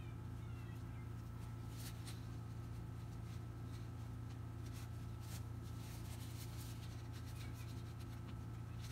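A paper towel rubbing and rustling as ink drips are wiped from a printer's ink-tank fill ports, a few faint soft scrapes, over a steady low hum.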